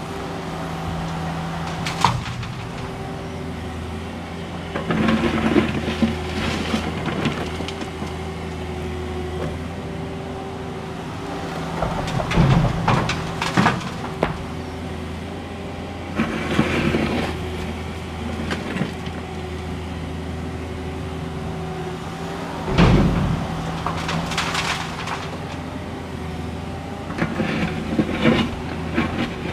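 Cat 305.5E2 mini excavator's diesel engine running steadily while broken asphalt slabs clatter and bang as the bucket scoops them and dumps them into a steel dump-truck bed, in several bursts. The sharpest bang comes a little past two-thirds of the way through.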